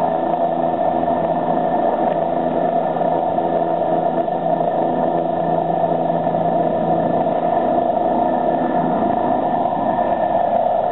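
Bell 407 helicopter's turboshaft engine and four-blade main rotor running at takeoff power, a steady turbine whine over rotor noise. A low hum drops away about nine seconds in as it lifts off the ground.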